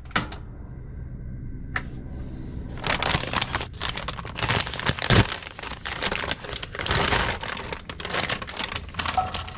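A couple of sharp clicks, then from about three seconds in, a plastic bag of pre-diced chicken crinkling and rustling as it is cut open with a knife and handled.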